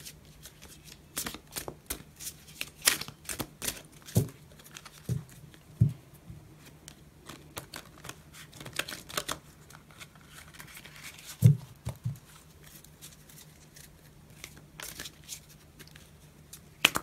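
A deck of tarot cards being shuffled by hand: an irregular run of papery riffling and clicking, with a few louder knocks, the strongest about two-thirds of the way through, over a faint steady low hum.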